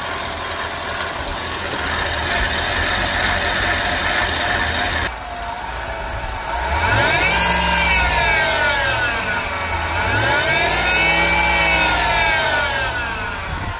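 An engine running steadily, then, after an abrupt change about five seconds in, revving up and back down twice.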